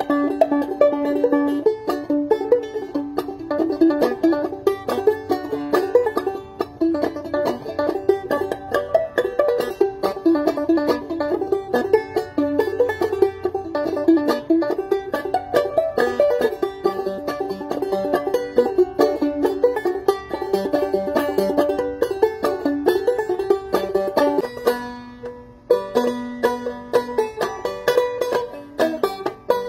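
Solo five-string banjo playing an old-time bluesy tune, a steady run of plucked notes that thins out briefly about five seconds before the end and then carries on.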